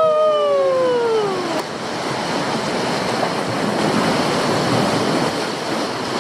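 Steady rush of water and wind. In the first second and a half, a held tone slides down in pitch and then stops.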